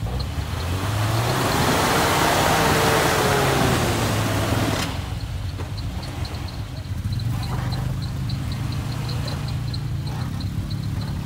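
Radio-controlled scale crawler truck's electric motor and drivetrain whining, rising then falling in pitch under throttle for a few seconds in mud. It then crawls slowly with a steady low hum and a light, regular ticking.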